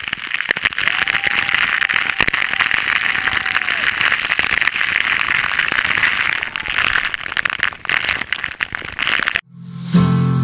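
Waterfall spray pounding on a waterproof action camera's housing: a loud, dense rush of falling water full of crackles. It cuts off suddenly about nine and a half seconds in, and acoustic guitar music starts.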